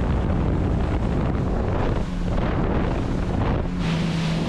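Wind buffeting the microphone over the steady low hum of a boat's engine and water noise.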